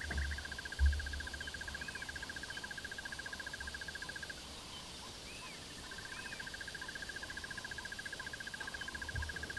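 Waterside wildlife ambience: a steady, high, fast-pulsed trill breaks off about four seconds in and resumes a couple of seconds later. A few short bird chirps come over it, and there is a low thump about a second in.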